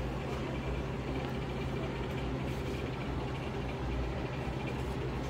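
A steady, low machine hum with a faint hiss behind it.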